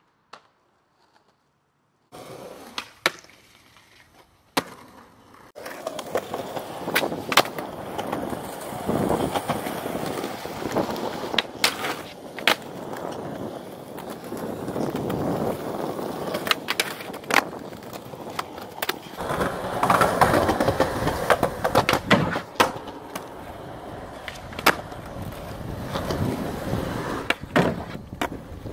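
Skateboard wheels rolling on pavement, broken by repeated sharp snaps and clacks as the board is popped and lands on tricks. The rolling starts about two seconds in, after near silence.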